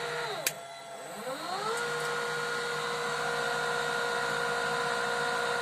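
Electric motor run from an Allen-Bradley variable-frequency inverter, its pitched whine falling away as the drive ramps it down. A switch clicks about half a second in, then the whine rises as the motor ramps up the other way and settles into a steady run.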